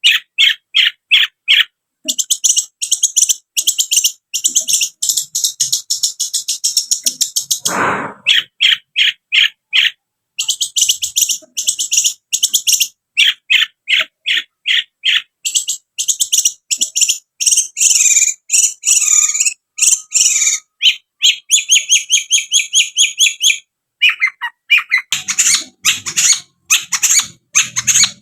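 Long-tailed shrike (cendet) singing: long runs of short, sharp, high chattering notes, about seven a second, broken by short pauses. A brief lower noise sounds about eight seconds in.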